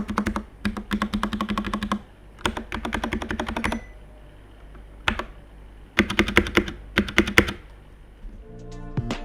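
Fast typing on a VortexSeries VX8 Pro 75% mechanical keyboard fitted with Gateron Red linear switches: runs of rapid keystrokes broken by short pauses. Background music comes in near the end.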